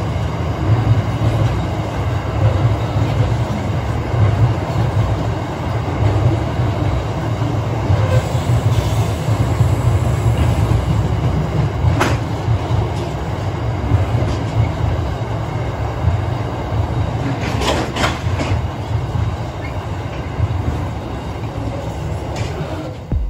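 Freight train of covered hopper wagons rolling across a rail bridge: a steady heavy rumble of wheels on rails, with a sharp clack about halfway through and a short cluster of clacks a few seconds later.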